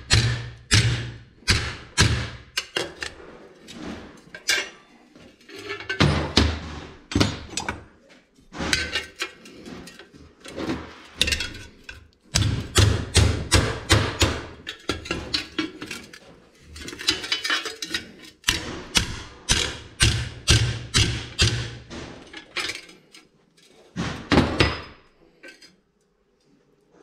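Hammer blows on a steel strap being bent into a bracket against a walking tractor's exhaust muffler: runs of sharp metallic strikes, two or three a second, broken by short pauses.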